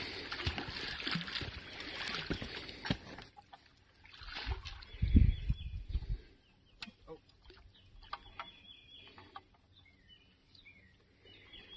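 A snagged fish thrashing at the surface against a taut line, loud splashing that dies down after about three seconds. A brief low rumble about five seconds in, then only scattered small splashes and ticks.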